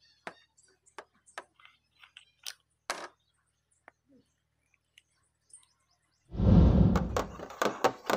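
Small plastic clicks and taps as hands handle an acrylic paint jar and twist off its plastic screw cap. About six seconds in comes a sudden louder burst of rubbing and knocks, then a run of quick clicks.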